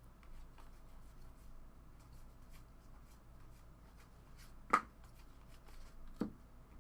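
Trading cards handled by hand, with light clicks and rustles as they are slid and flipped through, and two sharper taps, one about five seconds in and another a second and a half later.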